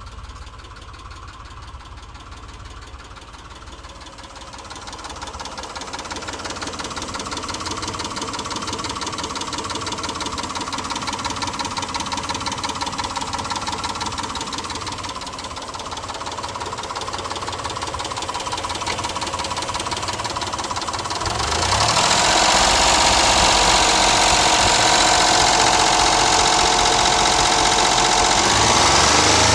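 Mitsubishi Montero engine running with a rapid, even ticking knock, which the owner suspects is either a stuck valve lifter or piston slap. The sound gets suddenly louder about three quarters of the way through.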